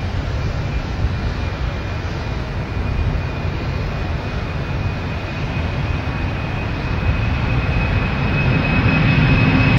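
Boeing 747's four jet engines running at high power as the airliner rolls down the runway: a deep rumble with a steady high whine, growing louder toward the end.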